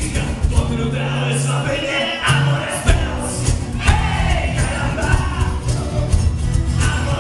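Live band music with a male lead vocal over strummed acoustic guitar, steady low bass notes and drums, picked up from among the audience.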